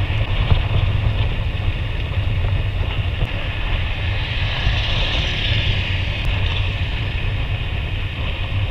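Wind buffeting the microphone of a camera on a moving bicycle, a steady low rumble with tyre and road hiss over it. The hiss swells for a couple of seconds about halfway through.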